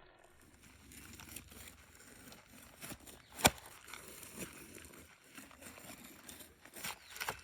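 Knife cutting into a jackfruit: scattered knocks and tearing crunches, with one sharp knock about three and a half seconds in and two more near the end.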